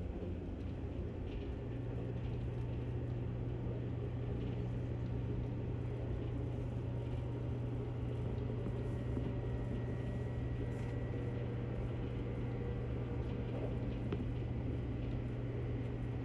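Steady running noise inside a JR Kyushu 783 series electric train: a low rumble of wheels and motors on the rails, with a faint high tone over it. The low hum steps up slightly about a second in.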